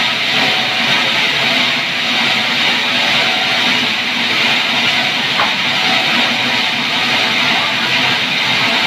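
Sawmill band saw running steadily with no log in the cut, a loud, even, high-pitched ringing hiss.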